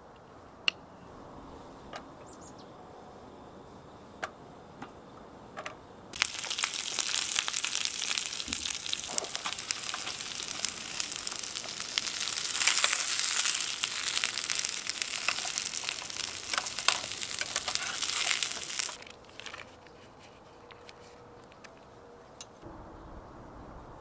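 A few knife chops through cucumber onto a wooden cutting board. Then carrot and cucumber slices sizzle and crackle in oil in a frying pan for about thirteen seconds before the sound stops.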